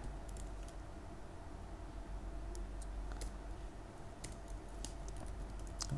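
Computer keyboard keystrokes, a scattering of separate clicks with gaps between them, as a line of code is typed.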